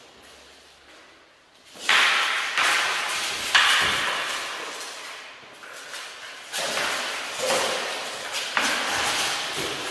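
Training spears clashing and striking armoured fighters: sharp clacks and knocks with the rattle of mail and armour, echoing in a large hall. Quiet at first, a burst of hits about two seconds in, a single sharp hit a moment later, then a string of hits in the second half.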